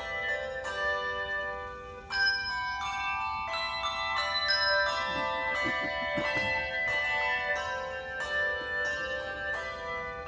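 Handbell choir playing: tuned bells struck one after another, their ringing tones overlapping into chords. A loud chord comes in about two seconds in.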